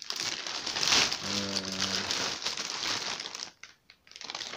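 Plastic courier mailer bag crinkling and rustling as it is handled and shaken, loudest about a second in, stopping briefly near the end before starting again.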